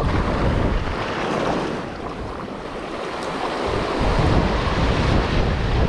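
Small sea waves washing and splashing over shore rocks, with wind buffeting the microphone. The wind rumble eases for a couple of seconds in the middle and picks up again about four seconds in.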